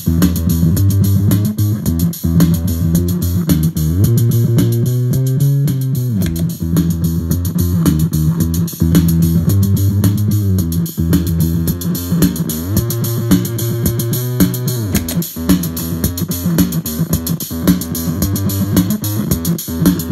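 Looped electric bass line played through a gated bass fuzz pedal, drive partly backed off and gate set to hard: a buzzy, distorted bass with notes cut off sharply. The line holds low notes, with a few sliding notes about a third of the way in and again past the middle.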